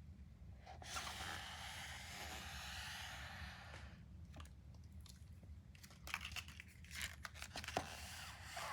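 Plastic candy wrapper being torn open and crinkled: a steady stretch of tearing from about a second in, then scattered crinkles and clicks near the end.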